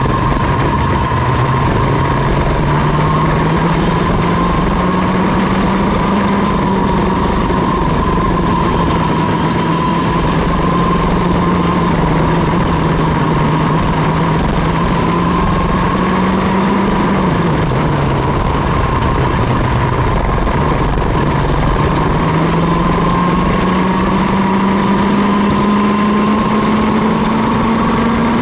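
Onboard sound of a Mini ROK kart's Vortex 60cc two-stroke engine at racing speed, its pitch climbing through the first few seconds and then holding. About two-thirds of the way through the pitch drops sharply as the kart slows for a corner, then climbs steadily again as it accelerates out.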